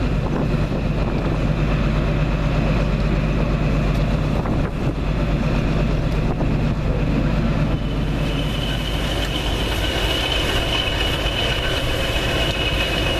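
Diesel locomotive engines idling with a low, steady rumble. About eight seconds in the rumble drops back and a high, steady whine comes in.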